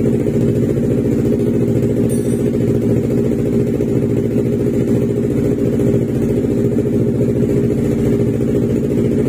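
Yamaha R3's 321 cc parallel-twin engine idling steadily through a freshly fitted Akrapovic full-system exhaust.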